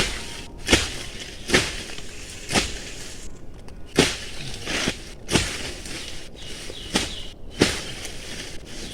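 A series of sharp strikes, about one a second, with an irregular spacing, over a faint background.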